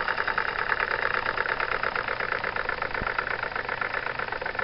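Jensen 55 toy steam engine running at speed with a rapid, even chuff-and-clatter beat, driving a belt-powered novelty coffee grinder.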